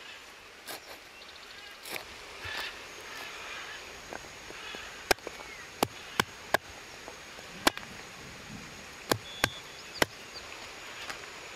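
Cleaver chopping on a wooden chopping block, single sharp strikes at an irregular pace, the loudest eight in the second half, as lemongrass stalks and a fresh root are sliced. Faint chirps and a thin steady high tone sit in the background.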